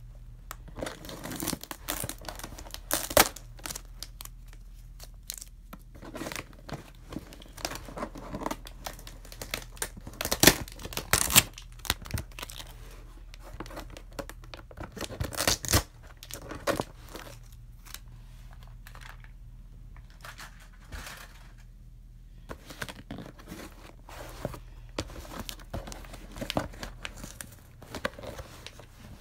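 A Priority Mail cardboard box being opened by hand: irregular tearing and crinkling of cardboard and packing tape, with a few louder rips around the middle.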